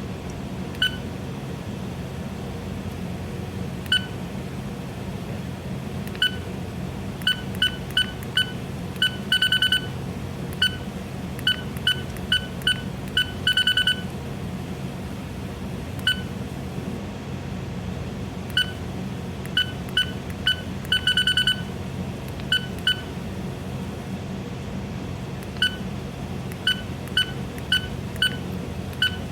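Short electronic key beeps from a BNWAS (bridge navigational watch alarm) control panel as its buttons are pressed to set the timer. Single beeps come at irregular intervals, with a few quick runs of rapid beeps, over a steady low hum.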